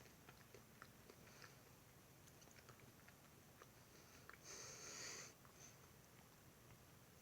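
Faint chewing of a bite of almond butter granola cup, with small scattered crunchy clicks. About halfway through there is a short hiss-like noise lasting under a second.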